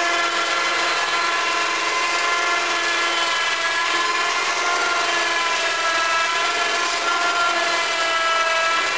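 Electric winch motor running steadily with a gear whine as it lowers a heavy water tote on a homemade forklift, then cutting off near the end.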